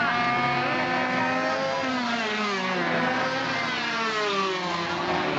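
Several two-stroke minimoto engines racing past at once, their high whines overlapping and sliding up and down in pitch as the bikes brake, accelerate and pass.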